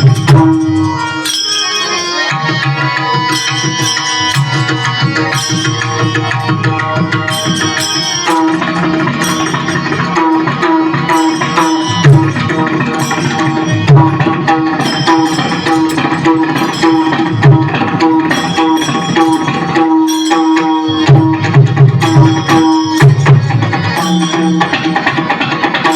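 Instrumental devotional kirtan music: tabla playing a steady rhythm under a held drone and sustained melodic lines, with no singing.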